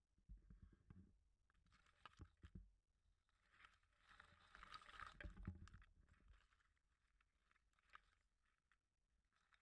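Very faint rustling in grass with a few soft thumps, loudest about four to six seconds in: a small dog and a person moving through the grass.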